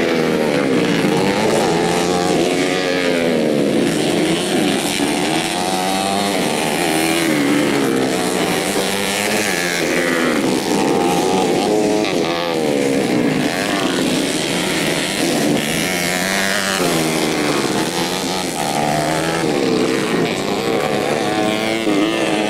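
Several modified 125cc four-stroke underbone motorcycle engines revving hard and overlapping, their pitch rising and falling again and again with throttle and gear changes.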